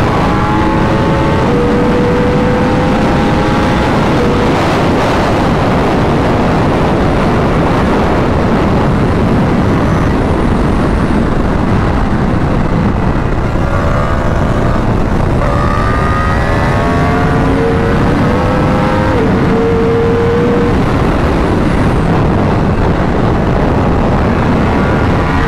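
A 2021 Yamaha R1's crossplane inline-four, through a full Akrapovic exhaust, running hard at high speed under a loud rush of wind noise. The engine note climbs in each gear and drops back at a run of quick upshifts about halfway through. For much of the first half the engine is faint under the wind.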